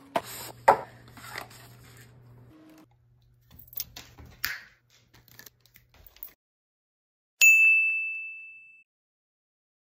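A single bright text-message notification ding about seven seconds in, ringing out over about a second and a half, announcing that the dog's DNA results are ready. Before it, faint handling clicks and rustles.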